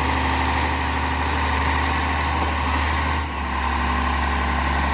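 Caterpillar heavy construction machine's diesel engine running steadily at idle, its low note shifting slightly about three seconds in.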